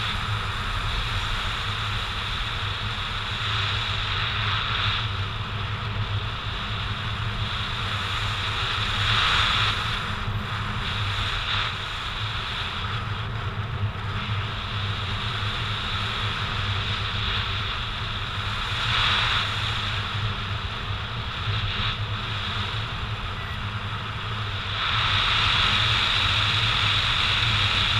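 Wind noise from the airflow past a paraglider pilot's camera in flight, steady, with several swells where it grows louder, the longest near the end.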